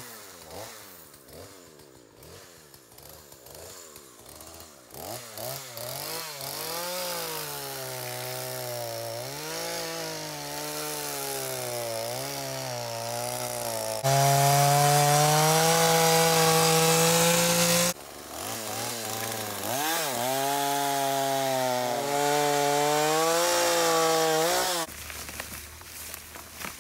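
Chainsaw cutting through a fallen tree trunk, the engine revs rising and falling as it works the bar into the wood. It holds a loud, steady high pitch for about four seconds in the middle, drops briefly, revs through a second stretch of cutting, then falls away near the end.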